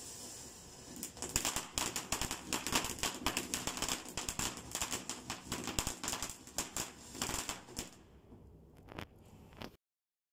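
Ground fountain firework hissing, then crackling rapidly and densely as it throws up sparks; the crackle thins to a few last pops and the sound cuts off suddenly near the end.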